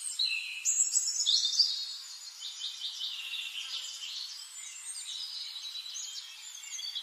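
Birds chirping and twittering: many quick, high calls overlapping, a little louder in the first two seconds.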